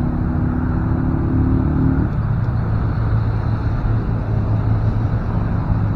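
A motor vehicle's engine running with a steady low hum; a higher steady tone over it cuts off about two seconds in.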